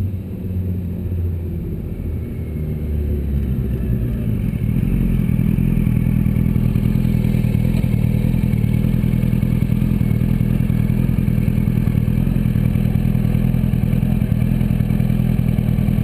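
Yamaha YZF-R1's inline-four engine running at low revs as the bike pulls up, then idling steadily close by, louder and even from about five seconds in.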